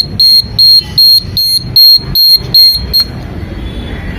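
A motorcycle indicator buzzer beeping in time with the turn-signal flasher, a high-pitched beep about two to three times a second. It stops about three seconds in.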